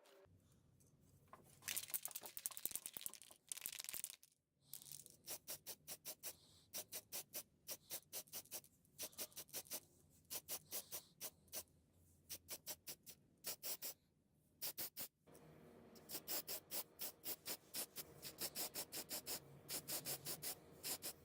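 Rhythmic hand scraping strokes on metal, about three a second, in runs of several seconds with short pauses between.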